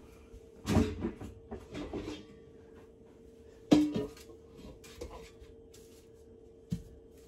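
Cookware being handled: a black pot picked up and set down with several knocks and clatters, the sharpest about a third of the way in and a smaller thump near the end, over a steady faint hum.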